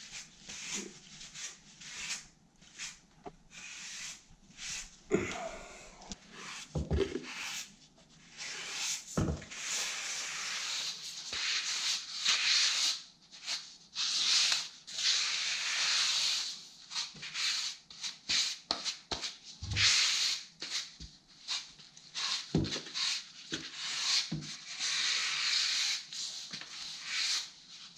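Grout float scraping wet charcoal grout across porcelain floor tiles and pressing it into the joints, a gritty rasping scrape in repeated strokes. The strokes are short at first, then become longer sweeps, with a few low knocks in between.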